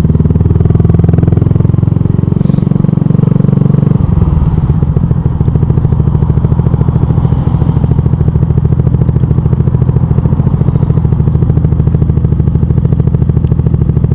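Yamaha YZF R125's 125cc single-cylinder four-stroke engine running while the bike is ridden. About four seconds in the engine note drops, then holds steady.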